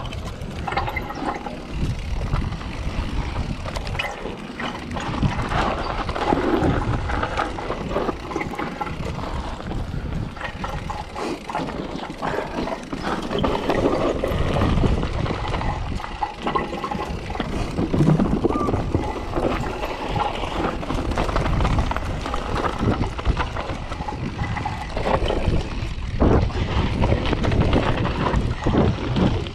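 Mountain bike being ridden on a dirt trail: wind rushing over the action-camera microphone in gusts, with tyre noise and the bike's rattles and clicks over the bumps.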